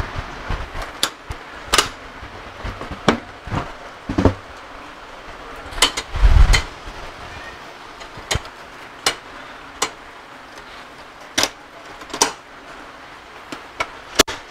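An aluminium alloy motorcycle top box being seated and shifted on its mounting base plate: a string of sharp, irregular clicks and knocks from the case and its latch parts, with one heavier thump about six seconds in.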